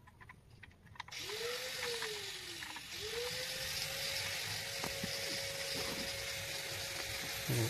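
Corded electric drill switched on about a second in: the motor spins up, slows briefly, then spins up again and runs at a steady pitch with an airy fan hiss.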